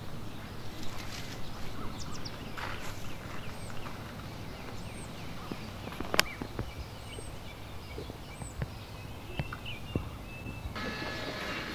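Footsteps walking along an outdoor path, with occasional brief high bird chirps over a steady outdoor hush, and one sharper click about six seconds in.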